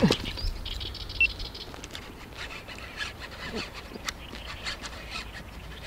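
Angler's short grunts while fighting a hooked bass, over scattered clicks and rustling from rod and reel handling.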